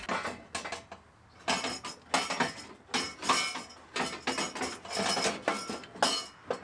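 Loose metal and plastic parts clinking and rattling inside a crash-damaged pickup's front end as they are handled and pulled out by hand, in a string of irregular knocks and clatters.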